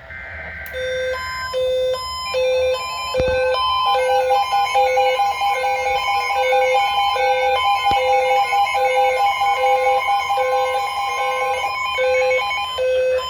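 Emergency Alert System alert for a severe thunderstorm warning: a short buzzy burst, then the steady two-tone attention signal, with a repeating alarm beep over it about every 0.6 s.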